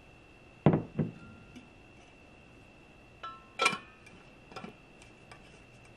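Two sharp knocks about a second in, as a pitcher and a stainless steel kids water bottle are set down on the countertop, then a few plastic clicks as the bottle's plastic straw lid is fitted and screwed on. A faint steady high whine runs underneath.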